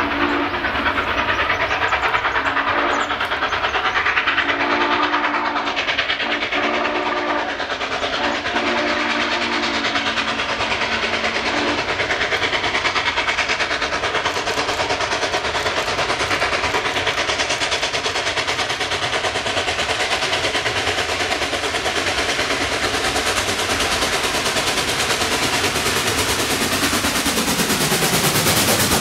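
Norfolk & Western J-class 4-8-4 steam locomotive No. 611 sounds its several-note steam whistle in a series of blasts over the first twelve seconds, the last held longest. Its running noise grows steadily louder as it approaches and passes close by near the end.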